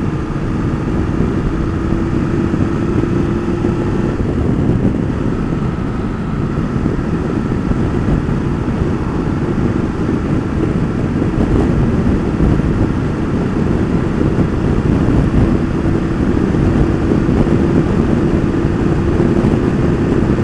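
BMW F850GS motorcycle's parallel-twin engine running steadily on the open road, pulling gently as road speed builds through the high forties to about sixty, with wind rushing over the microphone.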